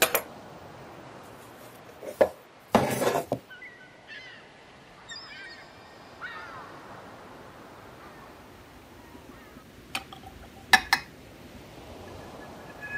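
Metal kerosene-lamp parts (the brass burner and the font) clinking and knocking on a wooden table as they are handled: a sharp click at the start, another about two seconds in, a short rattling clatter just under three seconds in, and two more clicks near the end.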